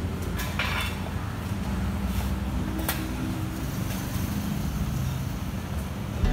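City street ambience: a steady low rumble of traffic, with a few faint clicks and knocks.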